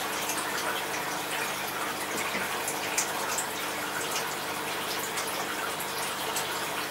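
Aquarium water circulating steadily, with scattered small pops and splashes and a faint steady pump hum underneath.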